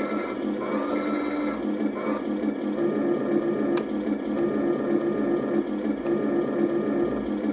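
Heng Long 1/16 KV-1 RC tank's sound unit playing its simulated engine rumble through the tank's small speaker, steady at first and taking on an even, rhythmic pulse about three seconds in. A single sharp click is heard near the middle.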